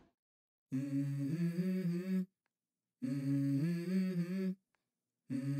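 Background music: a hummed vocal melody in three short phrases of stepped, held notes, with dead silence between them, the opening of a pop song.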